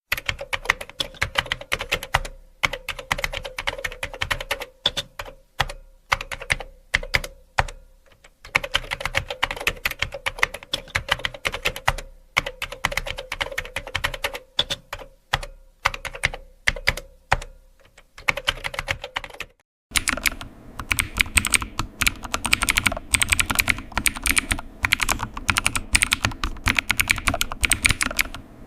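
Typing on a computer keyboard: quick runs of key clicks broken by short pauses. About twenty seconds in it changes to a different recording with faster, denser, brighter keystrokes.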